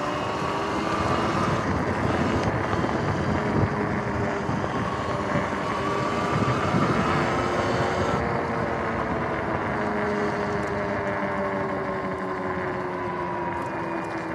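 Sur-Ron X electric dirt bike's motor and drivetrain whining while it rides, the pitch rising and falling slowly with speed and easing down near the end. Wind buffets the microphone underneath.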